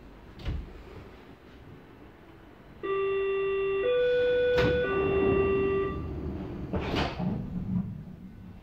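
Electronic chime in a commuter train car: three steady tones, low, higher, then low again, each about a second long, over the low rumble of the car. A sharp knock falls in the middle of the chime and another about a second after it ends.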